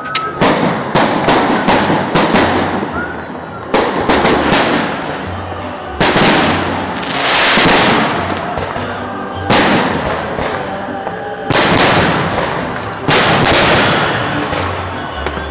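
Fireworks display: aerial shells bursting, a quick run of sharp pops in the first couple of seconds, then a big bang about every two seconds, each followed by a long fading tail.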